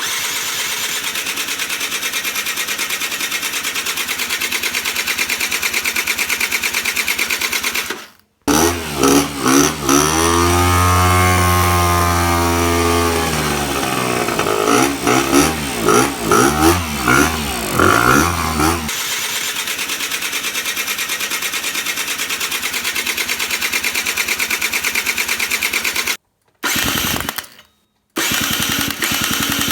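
Aprilia SR 50 scooter's 50cc two-stroke engine being cranked on the electric starter without starting: a steady fast whirr in long stretches, broken off and restarted. About a third of the way in comes roughly ten seconds of a pitched, wavering sound that rises at first. Near the end the starter is pressed in short bursts.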